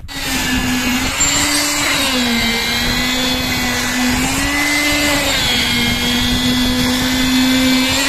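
Hand-held electric concrete needle vibrator running steadily with its poker in fresh concrete, its motor giving a steady whine whose pitch sags and recovers a few times.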